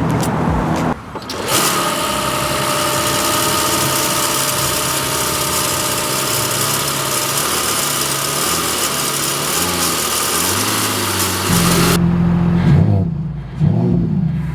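The turbocharged 3.0-litre inline-six of a 2025 Mercedes-AMG E53 hybrid starts and runs at a fast idle that slowly settles lower. Near the end it gives a few short revs.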